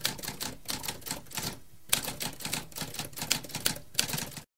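Typewriter typing: a fast run of key clacks, several a second, with a short break just before two seconds in, cutting off suddenly near the end.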